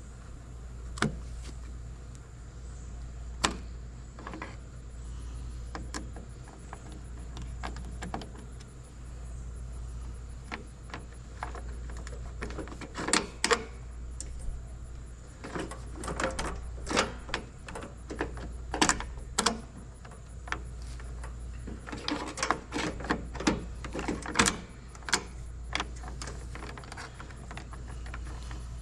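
Irregular metallic clicks, clinks and knocks of hands and tools working on an electrical box, disconnecting conduit and wiring, coming in clusters over a steady low rumble.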